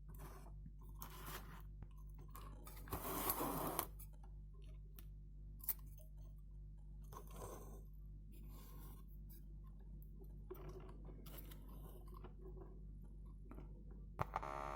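A steady low electrical hum with scattered scraping and rustling handling noises over it, the loudest a few seconds in; faint music starts up again near the end.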